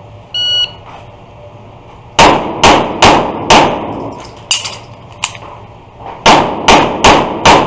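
A shot timer's short electronic beep, then a handgun fired in two quick strings of four shots, about half a second apart, each shot echoing off the walls of an indoor range. Between the strings come two fainter sharp clicks.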